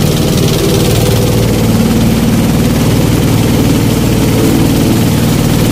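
Motorboat engine running steadily at an even pitch, a constant low drone.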